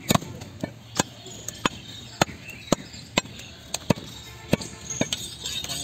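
Heavy butcher's knife chopping through bone-in beef ribs on a wooden tree-stump block: a steady run of sharp chops, about two a second.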